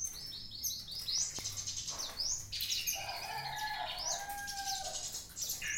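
Caged songbirds chirping with many short, quick, high calls, and a lower warbling call about three seconds in.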